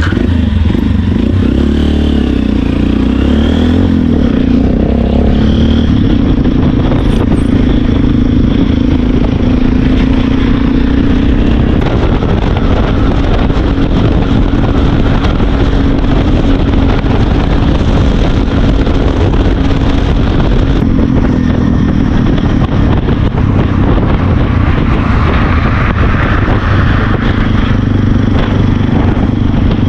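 Motorcycle being ridden on the road, its engine running steadily under a loud, continuous rush of wind and road noise. The engine note bends up and down slightly a couple of times as the speed changes.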